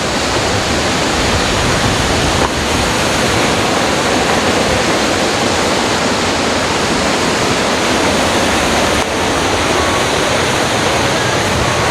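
Loud, steady rush of flowing water, a waterfall or stream close by, even and unbroken apart from two slight dips.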